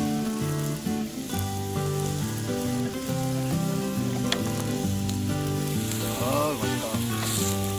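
Background music with a stepping melody over beef and mushrooms sizzling steadily on a hot stone griddle heated by a portable gas burner.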